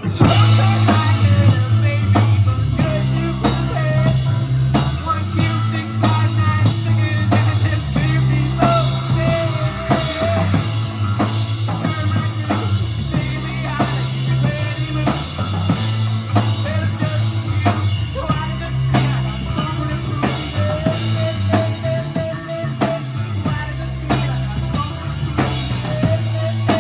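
Live rock band kicking in suddenly and playing a chorus: drum kit keeping a steady beat over a held bass line and a sustained higher instrument note.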